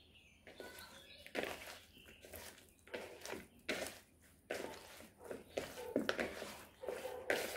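Hands mixing raw chicken pieces into a thick masala marinade in a bowl, with no water added: an irregular series of soft, wet handling sounds.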